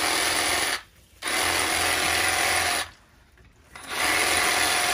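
Cordless reciprocating saw running as its blade cuts into a bluefin tuna carcass. It stops briefly about a second in, runs again, pauses for about a second near the three-second mark, then starts up again.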